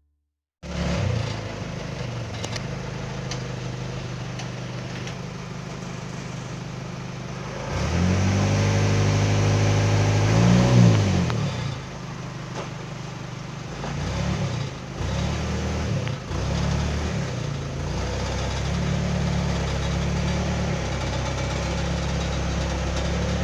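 An engine running, its low pitch rising and falling as it revs, loudest about ten seconds in.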